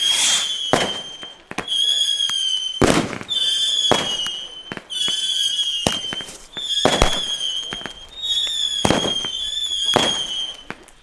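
D-Böller firecrackers going off one after another, a rapid series of loud sharp bangs, roughly one or two a second. A steady high whistling tone sounds between the bangs.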